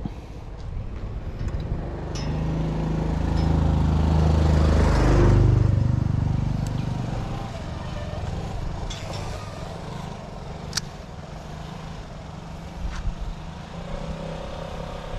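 An engine passes close by, its low hum growing louder over about three seconds, peaking about five seconds in and fading away soon after. A few sharp clicks come later.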